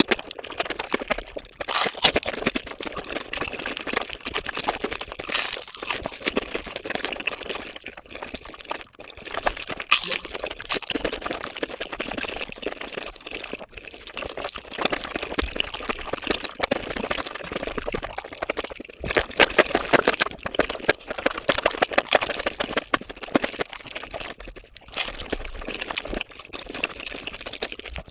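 Mukbang eating sounds played at five times speed: chewing, crunching and slurping run together into a dense, wet-sounding crackle of rapid clicks, with a few louder sharp crunches.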